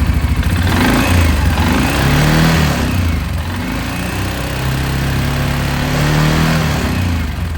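CFMoto CForce 520 ATV's single-cylinder engine running and being revved up twice, then let back down. The revving checks for a metallic rattle after heat-resistant gaskets were fitted at the exhaust joints to stop it.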